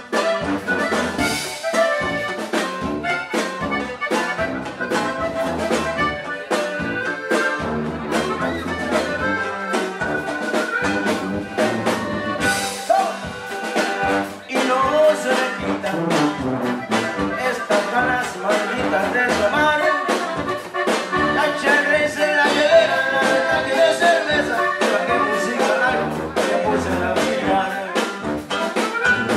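Live norteño band with tuba playing an instrumental passage: accordion melody over tuba bass, guitar and a drum kit keeping a steady beat.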